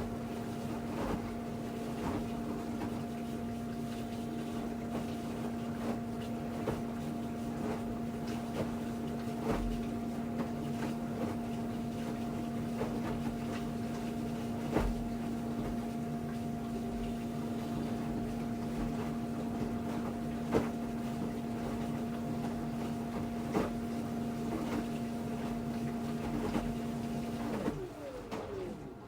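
Panasonic NA-LX113BL drum washing machine running, its motor giving a steady whine with light knocks and rattles from inside the turning drum. Near the end the whine drops in pitch as the drum winds down.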